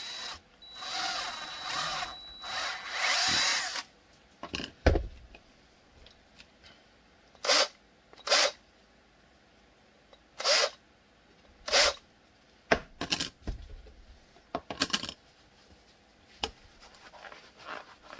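Cordless drill running with a thin whine for about four seconds, then in several short trigger bursts, its bit working holes in a Kydex piece. There are a few knocks of handling in between and some cloth rubbing near the end.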